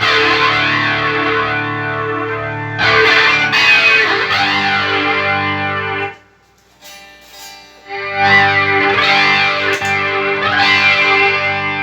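Electric guitar played through a Line 6 POD HD500X multi-effects processor: sustained chords ringing with a sweeping, wavering effect. The playing stops about six seconds in and starts again about two seconds later.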